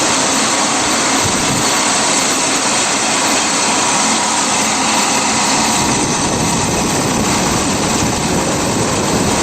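Pet feed extruder machinery running with a loud, steady mechanical noise.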